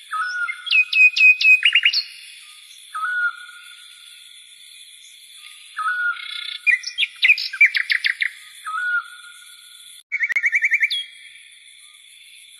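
Songbirds singing: repeated short phrases of quick chirps and fast trills in several bouts, over a steady high background hiss.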